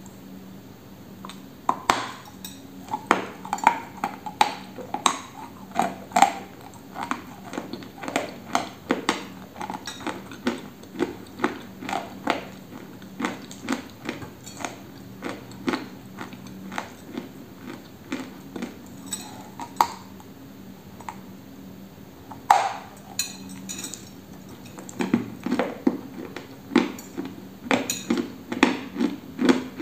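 Biting and chewing a dry white mineral lump: a long run of sharp crunches and crackles that thins out about twenty seconds in, then a loud bite and quicker crunching near the end.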